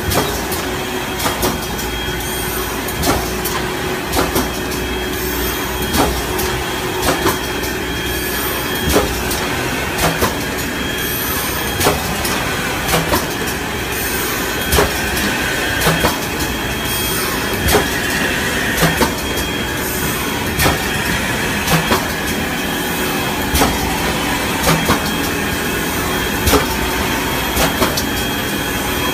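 PE liner inserting-cutting-sewing machine for PP woven sacks running in production: a steady mechanical hum with a constant whine, sharp clacks from its moving parts about once or twice a second, and short high hisses recurring every second or two.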